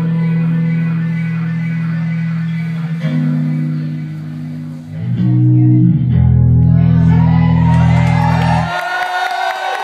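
Loud music with deep, steady bass notes that cut off suddenly near the end, leaving higher notes that bend up and down.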